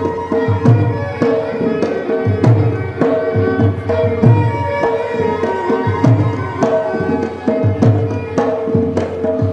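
Music with a steady drum beat, about two hits a second, under held melodic notes.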